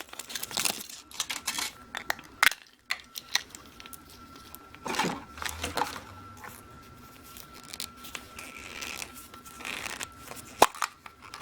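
Thin foil wrapper of a chocolate surprise egg crinkling and tearing as it is unwrapped by hand, with scattered crackles and sharp clicks; the loudest click comes about two and a half seconds in and another near the end.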